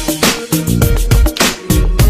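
Background music with a steady beat: repeated drum hits over a deep bass line.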